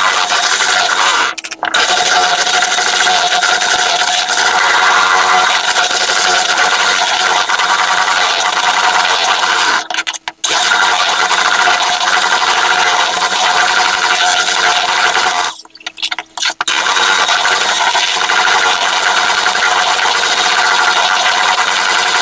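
Electric hand mixer running steadily, its beaters whipping chilled cream in a plastic bowl to double its volume. The sound drops out briefly three times, about a second and a half in, near the middle, and about two thirds through.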